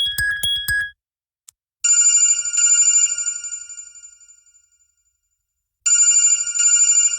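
Android 4.0 Ice Cream Sandwich phone ringtone: a bright, bell-like ring of high tones that starts just under two seconds in and fades away over about three seconds, then sounds again about six seconds in. The tail of another chiming tone cuts off about a second in.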